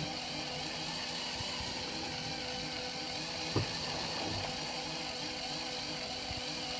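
Fishing boat's engine running steadily, a continuous mechanical hum, with one short knock about three and a half seconds in.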